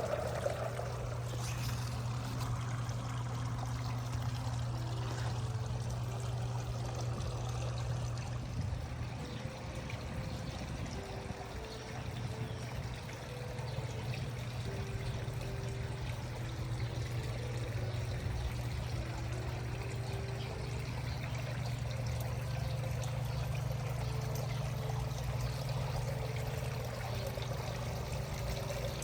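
Water running steadily, like a pouring or trickling stream.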